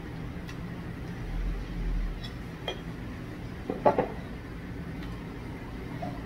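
A plate set down on a table among other dishes: a light clink, then a quick cluster of louder clinks about four seconds in, over a steady low hum.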